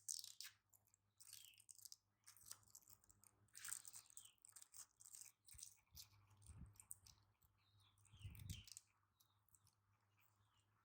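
Faint, irregular crinkling and crunching at close range, with two soft low thumps about six and a half and eight and a half seconds in, over a steady low hum.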